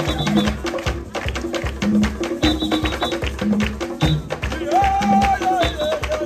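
A group of tall wooden hand drums playing a fast, driving rhythm, with deep, pitched drum tones under sharper slaps. Near the end a voice calls out over the drumming.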